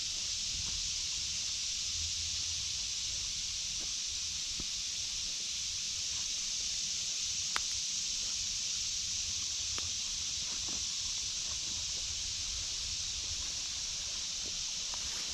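Steady high-pitched buzzing chorus of cicadas, even and unbroken. A few light crackles of footsteps on leaf litter and twigs sound over it, with one sharper snap about seven and a half seconds in.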